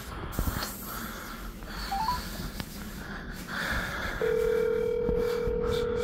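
Smartphone on speakerphone placing a call: a short three-note rising beep about two seconds in, then one steady two-second ringback tone starting just past four seconds in, the sign that the called phone is ringing. Light handling rustle underneath.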